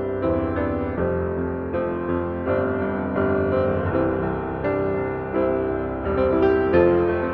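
Solo piano playing a gentle prelude, notes and chords struck every half second or so and left to ring.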